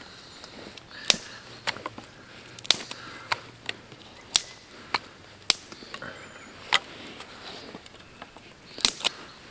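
Small dry sticks snapped by hand and laid on the ground: about a dozen sharp cracks and clicks at irregular intervals, two close together near the end.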